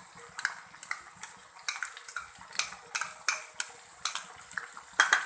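Metal spoon clinking and scraping repeatedly against a kadhai or bowl while garlic paste goes into frying potatoes, over the steady sizzle of the hot oil.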